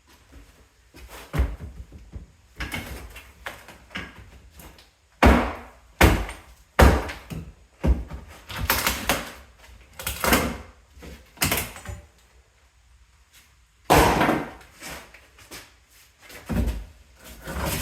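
Termite-damaged wooden floor being broken up and pried loose: irregular heavy knocks on wood, some followed by longer cracking and splintering, with short pauses between.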